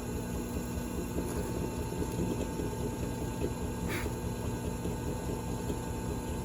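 Drill press motor running steadily, with a short click about four seconds in.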